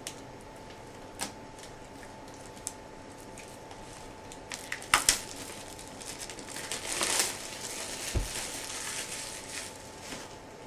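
Plastic packaging of a Nook e-reader being handled and opened: scattered clicks and taps, two sharp snaps about five seconds in, then a few seconds of crinkling, with a dull thump just after eight seconds.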